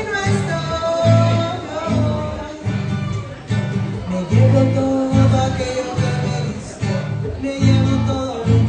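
Acoustic guitar strummed in a steady rhythm, with strong low notes on each beat and a long held melodic line above it, in an instrumental stretch of a live Latin pop cover.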